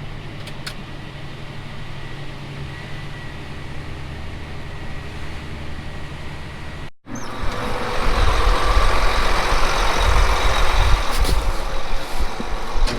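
John Deere S670 combine engine running steadily under harvest load. About seven seconds in there is an abrupt cut, after which the machinery is louder and rougher, with a deep rumble.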